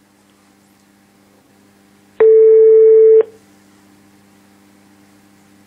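Telephone ringback tone heard down the phone line: one steady beep about a second long, a little over two seconds in, over a faint line hum. It means the call is ringing at the other end, not yet answered.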